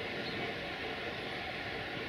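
Steady running noise of a CFR 060-EA1 electric locomotive and its passenger train: an even hiss with faint steady tones, no clicks or knocks.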